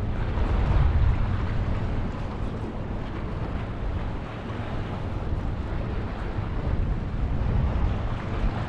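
Wind buffeting the camera's microphone over open choppy water: a steady low rush with no distinct events, a little stronger about a second in.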